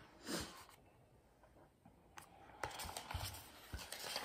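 Faint handling of a paper picture book: a soft rustle of the pages as the book is moved, then a few small scattered clicks and knocks as it is handled.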